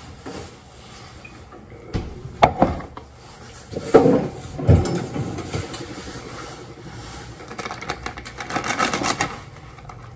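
Kitchen handling sounds: a few knocks and clunks as things are set down on the counter, among them a bag of milk in its plastic jug holder, then crinkly rustling of the plastic milk bag being handled near the end.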